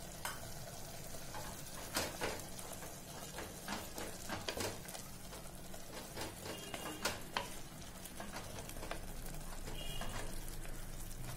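Wooden spatula stirring and scraping a bubbling onion-tomato masala in a pressure cooker pot, with irregular knocks against the pot over a steady sizzle.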